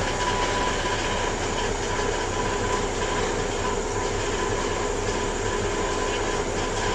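Safari truck's engine running steadily, heard from the open passenger bed, with a faint steady high tone over it.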